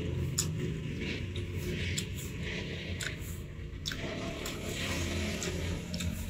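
Close-up chewing of crisp, unripe green mango: irregular crunches and wet mouth clicks, over a steady low hum.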